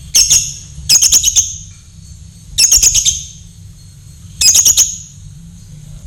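Lovebird calling in four loud bursts of rapid, shrill chirps, each burst of three to five sharp notes, coming about every one and a half to two seconds.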